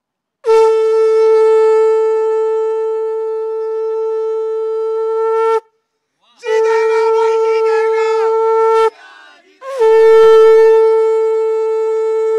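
Conch shell (shankh) blown in three long blasts, each a steady single note. The first lasts about five seconds, and the next two follow after short pauses.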